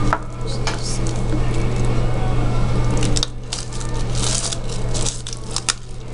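Crinkling and rustling of packaging and trading cards being handled, with scattered small clicks, over a steady low hum.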